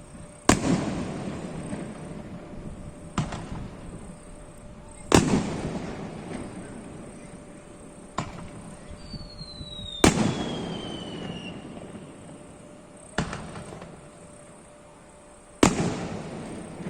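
Fireworks shells bursting overhead: seven booms, loud ones alternating with quieter ones about every two and a half seconds, each trailing off in a rolling echo. A falling whistle sounds about nine seconds in.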